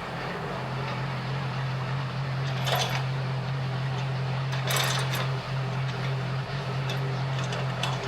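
Steady low mechanical hum at one constant pitch, with two brief noises about three and five seconds in.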